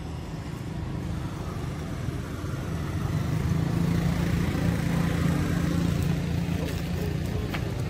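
Low hum of a motor vehicle engine, growing louder about three seconds in and easing off near the end, with a few light clicks near the end.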